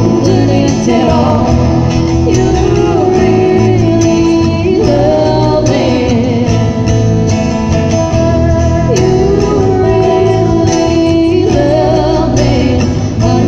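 Live band: a woman singing long held notes into a microphone over amplified electric guitars and band accompaniment.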